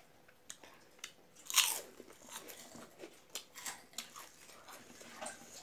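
Close-up crunch of a bite into crisp fried papad, loudest about a second and a half in, followed by the crackle of chewing it.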